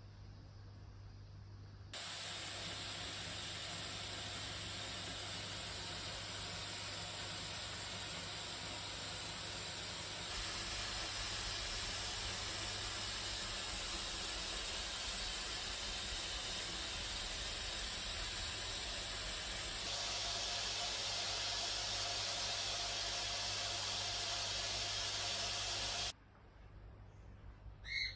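A steady hissing rush that starts abruptly about two seconds in, gets slightly louder twice, and cuts off sharply near the end.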